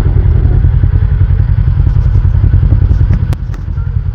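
Honda Pioneer side-by-side's engine running hard under load on a rock climb, its rear differential not locking in so the machine struggles; the engine eases off about three seconds in, followed by a couple of sharp knocks.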